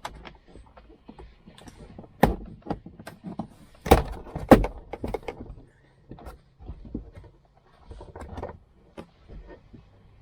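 A string of irregular knocks, clicks and rattles from hands and tools working on a car's plastic interior trim around a rear seat belt, with the loudest knocks about two, four and four and a half seconds in.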